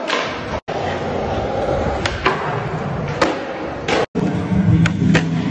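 Skateboard rolling on smooth concrete, the wheels rumbling steadily, with sharp clacks as the tail pops and the board lands during flat-ground tricks, several times. The sound cuts out abruptly twice, briefly each time.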